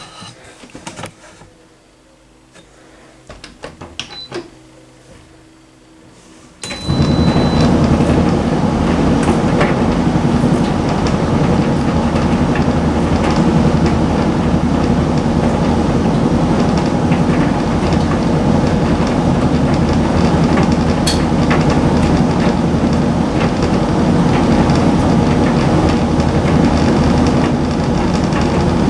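Hoover Visiontech Infinity tumble dryer starting its extra dry cycle. A few faint clicks and two short beeps come first. About seven seconds in, the drum and fan start at once and run with a steady, loud rumbling whoosh, with occasional light clicks from the laundry.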